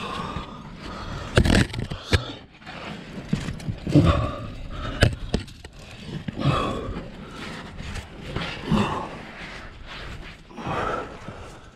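A climber's pack and clothing scraping against the rock while squirming up a chimney, with a couple of sharp knocks and heavy breaths between the scrapes.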